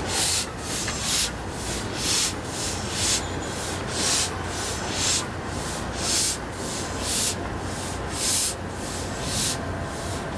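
C56 steam locomotive rolling slowly without its own fire, pushed by a diesel locomotive, its cylinders exhausting in rhythmic hissing chuffs: a strong one about every second with weaker ones between. A low diesel engine hum runs underneath.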